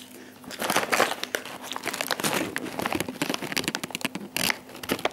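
Shiny plastic snack bag crinkling as it is handled and held open, with many quick irregular crackles starting about half a second in.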